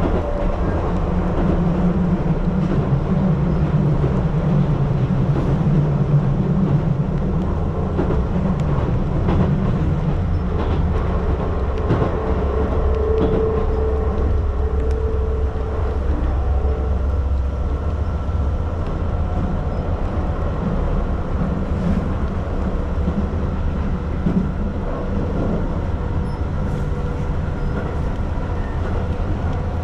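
Keihan Line electric train running, heard from inside the carriage: a steady low rumble with a hum that is stronger in the first half.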